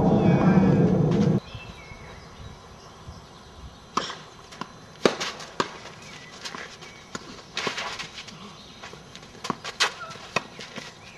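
Tennis ball struck by rackets and bouncing on a clay court during a doubles rally: a series of sharp pops and knocks, irregularly spaced about half a second to two seconds apart. It opens with a loud low rumble that cuts off suddenly about a second and a half in.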